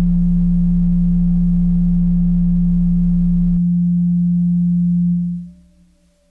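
Electronic music: a single loud, sustained low drone note holding steady. The deeper rumble under it drops out about three and a half seconds in, and the note fades away about five seconds in, leaving near silence.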